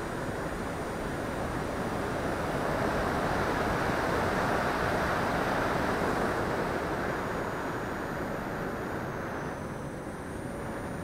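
Steady rush of air over the onboard camera of a radio-controlled L-39 Albatros model jet in flight, with a faint high whine. The rush swells in the middle and eases about nine and a half seconds in.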